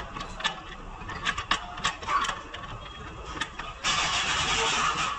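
Metal tools clinking and knocking in a series of sharp clicks, then, about four seconds in, a loud steady rushing hiss that runs for about a second and a half.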